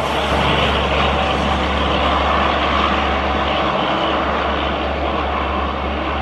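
Diesel freight locomotive hauling a passenger express, its engine working hard as the train picks up speed and draws away: a steady low drone with a broad rumble over it, easing off slightly toward the end.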